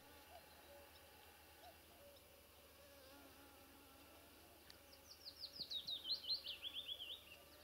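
Faint steady insect whine in a quiet meadow. About five seconds in, a small songbird sings a quick run of a dozen or more notes that step down in pitch over about two and a half seconds.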